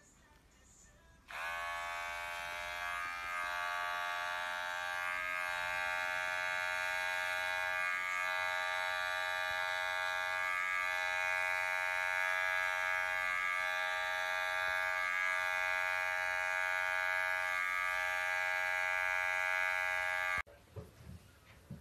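Cordless electric pet hair clipper running with a steady buzzing hum as it trims a cat's fur. It switches on about a second in and cuts off suddenly about a second before the end.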